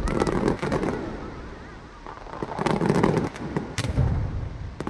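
Aerial fireworks bursting: several sharp bangs in clusters, at the start, about halfway and near the end, over steady crackling, with a thin wavering whistle in the first half.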